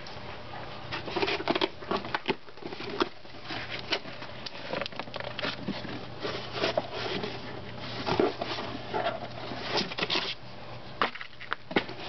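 Irregular rustling and scratching with light clicks and knocks, in clusters, with a few sharper clicks near the end, over a faint steady hum.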